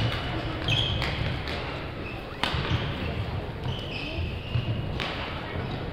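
Badminton hall: sharp racket-on-shuttlecock smacks a few seconds apart and short high squeaks of court shoes on the sprung wooden floor, over background voices, echoing in a large gymnasium.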